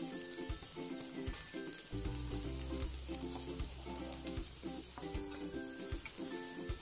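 Chopped onions sizzling as they drop into hot oil in a nonstick kadai, with a wooden spatula scraping and tapping against the pan and bowl. Soft background music with a repeating melody plays underneath.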